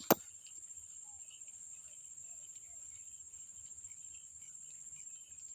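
Insects, crickets or the like, keeping up a steady high-pitched drone, with one sharp knock just after the start.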